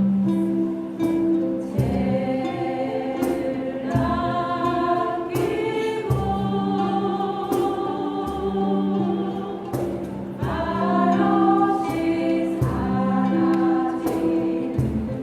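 Voices singing a Korean song together over instrumental accompaniment with sustained low notes and a steady beat.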